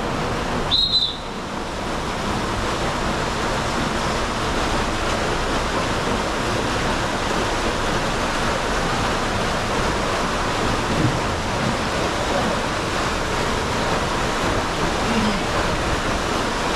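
Steady rushing of water, as on a water slide run, with one brief high-pitched chirp about a second in.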